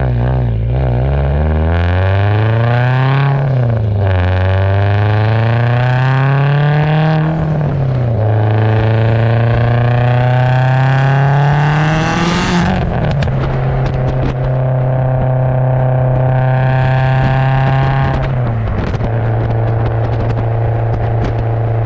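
Heavily turbocharged Subaru STI engine and exhaust under way. Revs climb and drop twice in the first eight seconds. A loud rushing burst comes about twelve seconds in, then the engine holds a steady pitch, with a drop near eighteen seconds.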